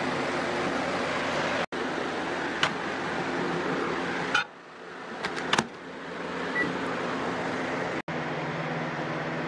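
A steady fan-like hum, then about halfway through a few sharp clicks as the microwave oven door is shut, a short keypad beep, and the Hamilton Beach microwave running with a steady hum as it heats plastisol.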